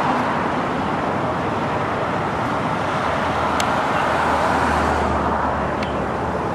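Steady road traffic noise, with a low engine hum underneath and a couple of faint ticks.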